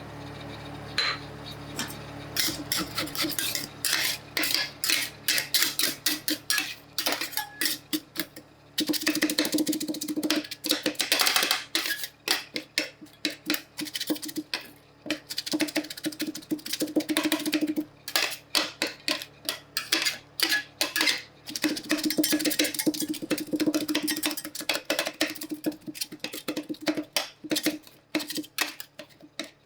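Metal spatulas rapidly chopping, tapping and scraping on the steel plate of a rolled ice cream cold plate, in a dense irregular clatter. This is the stage where crunchy macaroni snacks are being worked into the ice cream base.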